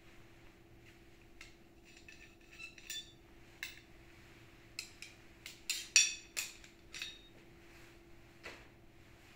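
Light clinks and knocks of hard parts being handled, a quick cluster about five to seven seconds in, the loudest near six seconds, over a faint steady hum.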